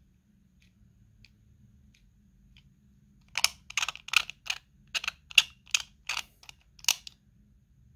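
Sharp plastic clicks from a hand-held 3D printed pipette controller as its parts are worked by hand: a few faint ticks, then about ten loud clicks at uneven spacing, starting about three seconds in and lasting nearly four seconds.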